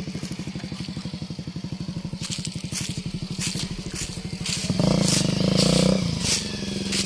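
Bajaj Avenger's single-cylinder engine running with steady, even firing pulses, while from about two seconds in the tyres crunch over loose stones and gravel. About five seconds in the engine grows louder for a second or so as it comes under load, then settles back.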